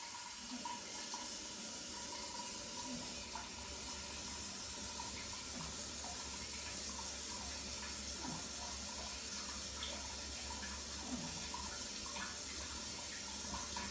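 A steady rush of running water, like a tap running into a sink, with a few faint small clicks.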